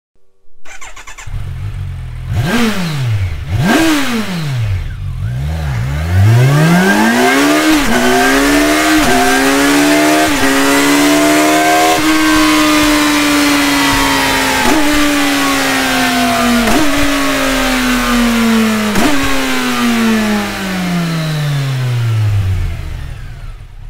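Kawasaki Versys 1000 inline-four engine running through an Akrapovic slip-on silencer. It is blipped twice quickly, then revved up in a long climb with a few brief dips, held high, and let fall slowly back toward idle.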